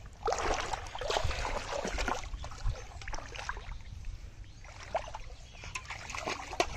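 Shallow muddy water splashing and sloshing in several bursts as hands and an aluminium pot move through it, with a sharp click near the end.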